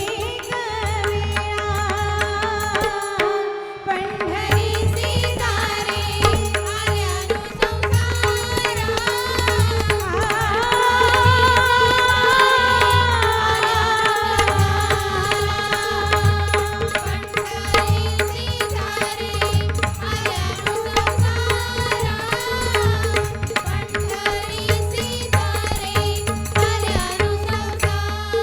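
Indian vocal singing accompanied by tabla and pakhawaj drums keeping a steady beat, with long held, wavering notes. The drums pause briefly about three seconds in, then come back in.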